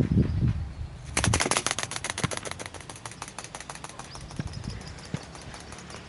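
Rubber-powered ornithopter's wings flapping: a rapid train of flapping clicks starting about a second in, loud at first and fading as the model climbs away. A low rumble comes before it.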